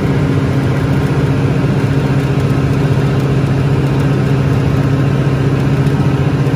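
Caterpillar G3408TA turbocharged V8 natural-gas engine of a 300 kW generator set running steadily at its governed 1800 rpm, with no electrical load on the generator.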